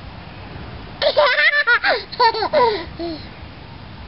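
A toddler laughing hysterically: a rapid run of high-pitched giggles starting about a second in, then a few falling whoops that die away after about two seconds.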